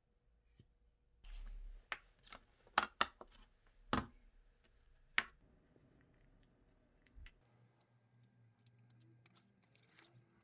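A few sharp clicks and knocks of a paper cup being handled, then the faint scratch of a thin wooden stick stirring liquid in the paper cup.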